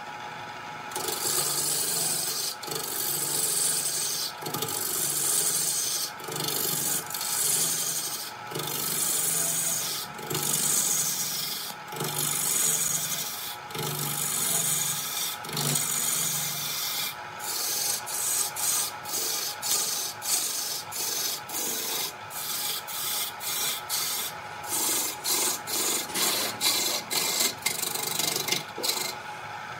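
Wood lathe turning a large wooden blank while a long hand-held turning tool cuts into it, shavings tearing off: a rough, hissing cutting noise over the lathe's steady hum. It is broken by brief pauses between passes, about every second and a half at first, then quicker, shorter strokes from about halfway on.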